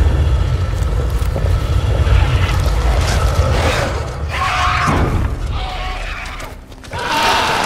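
Film soundtrack: a deep booming rumble under music, then harsh shrieking calls of young dragons (film creature sound effects) about halfway through and again near the end.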